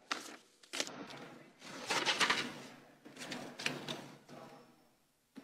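Sheets of paper being leafed through and shuffled close to a lectern microphone: several irregular rustling bursts, the longest about two seconds in.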